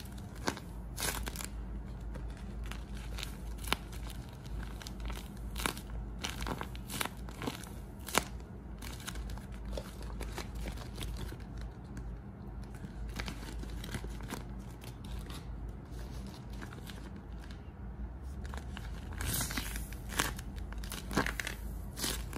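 Homemade tape-covered paper squishies crinkling and crackling as they are squeezed and handled, in irregular sharp crackles, thickest near the end.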